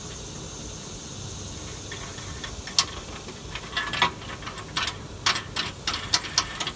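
Small metal clicks and clinks of hitch hardware and tools being handled while nuts are started hand tight on the mounting bolts, irregular sharp taps beginning about two and a half seconds in, over a steady hiss.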